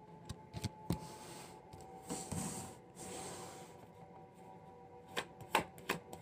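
A deck of tarot cards being shuffled in the hands: a few sharp card taps and flicks, a longer sliding rustle of cards about two to three seconds in, and more quick taps near the end.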